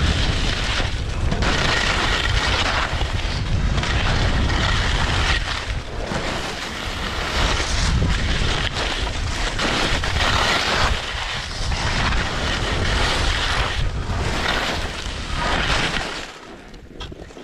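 Skis scraping over hard, icy snow through a run of turns, the hiss swelling and easing with each turn, under a heavy rumble of wind on the action camera's microphone. The sound drops away near the end as the skier slows.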